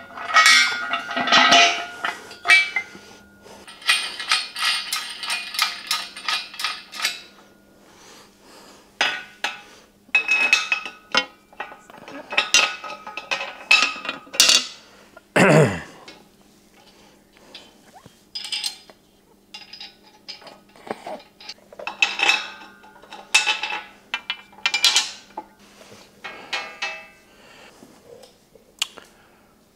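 Steel crane parts and loose nuts, bolts and washers clinking and clanking as they are handled and knocked together during assembly of a steel shop crane, in irregular sharp strikes with a metallic ring. About halfway through comes one sound that falls steeply in pitch.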